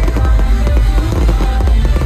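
Loud electronic dance music over a festival sound system, with a heavy bass beat, and fireworks going off overhead with sharp bangs and crackles.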